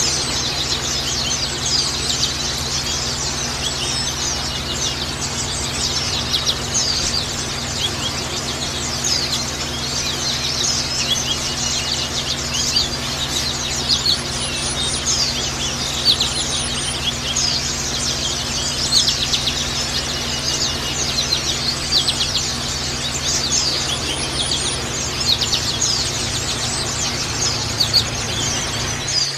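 White-eye (pleci) song: rapid, high, continuous twittering of many short chirps, over a steady low hum.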